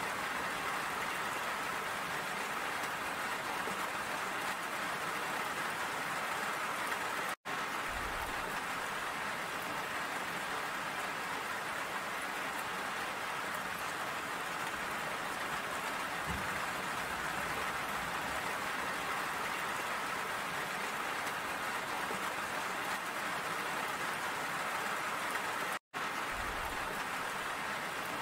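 Steady rain falling, an even hiss with no let-up, broken by two momentary silent gaps, one about seven seconds in and one near the end.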